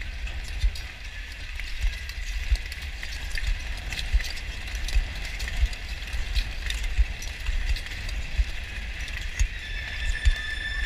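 Speed-skate blades scraping and clicking on the ice while wind and movement rumble and thump on the camera's microphone. A steady high tone comes in near the end.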